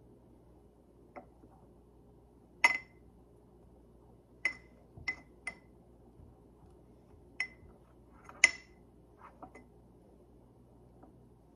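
A metal spoon clinking against the inside of a glass mason jar as stiff marshmallow creme is stirred and scraped: about nine irregular sharp clinks with a brief ring, the loudest a few seconds in and again about three quarters through.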